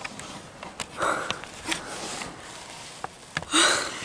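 Quick breaths and sniffs close to the microphone, mixed with clothing rustle and a few sharp clicks from the camera being handled. The loudest is a sharp breath about three and a half seconds in.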